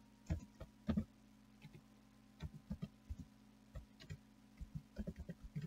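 Computer keyboard keys clicking as a few words are typed: short, irregular keystrokes with small gaps between them, coming faster near the end, over a faint steady hum.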